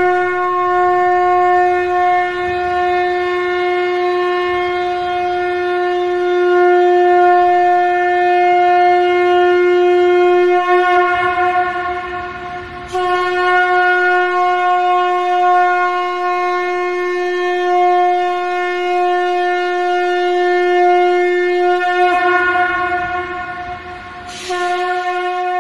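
Conch shell (shankh) blown in long blasts on one steady note, rich in overtones: the first blast fades out and a fresh one starts about 13 seconds in, and a third starts near the end.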